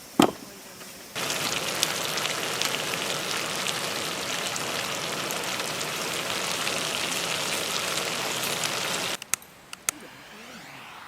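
Food sizzling and crackling in hot oil on a pan. The dense sizzle starts abruptly about a second in and stops abruptly near the end, after a single sharp click at the very start.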